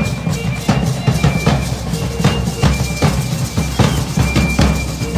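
A group of large double-headed drums beaten together in a steady, fast marching rhythm for a traditional Mexican dance procession, with a thin high violin line sounding on and off above the drumming.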